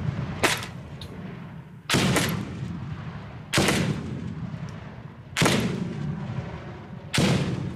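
Revolver-type grenade launcher being fired at a range, with its rounds going off downrange: five loud bangs about one and a half to two seconds apart, each fading away over about a second.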